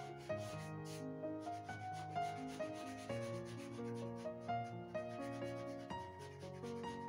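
Charcoal rubbed against drawing paper in short, quick shading strokes, a dry scratching, over soft background music of sustained notes moving step by step.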